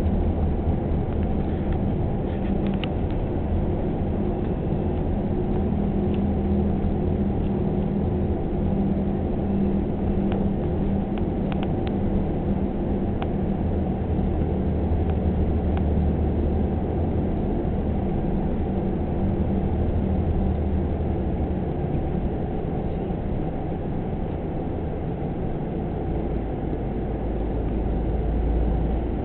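Road noise inside a moving car: a steady low rumble of engine and tyres on the road.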